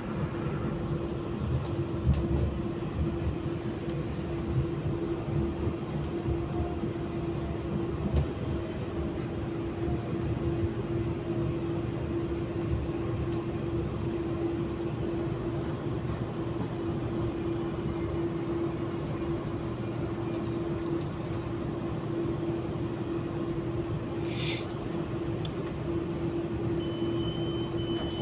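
Cabin of an AM class electric multiple unit train pulling into a station and coming to a stop: low rumble with a steady electric hum. Near the end a short hiss, then a high steady beep starts.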